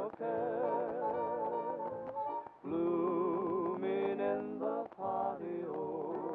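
Music: a song with a singing voice holding notes with vibrato, in phrases broken by two short pauses.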